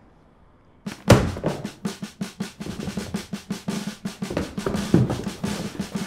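Film score: a fast, driving drum and percussion beat crashes in suddenly about a second in, with rapid snare hits over a steady low bass note.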